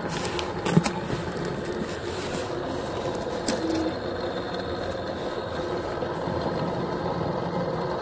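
Egg incubator's fan and motor running with a steady whir, with a few light clicks about half a second in.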